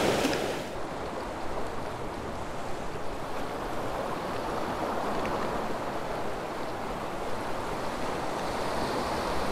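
Steady rushing noise of ocean surf, with some wind on the microphone.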